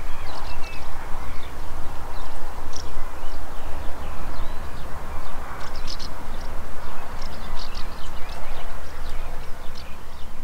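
Small birds chirping in many short, high calls over a steady low rumble of wind on the microphone.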